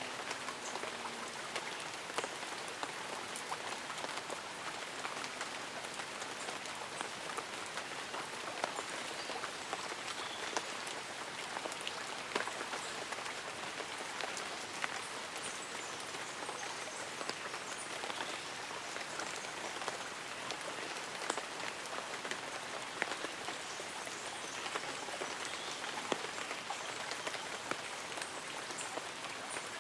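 Light rain pattering on tree leaves and an umbrella: a steady hiss dotted with many scattered drop ticks.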